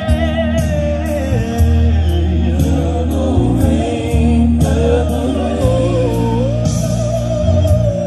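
A soul vocal group singing live over bass and drums. A lead voice holds long notes with vibrato and slides between pitches, with backing voices beneath it.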